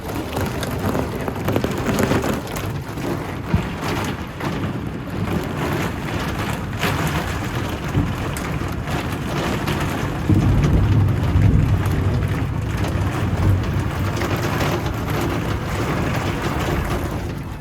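Heavy rain beating on a cable-car cabin in a thunderstorm, a steady hiss full of small hits. A low rumble of thunder swells about ten seconds in.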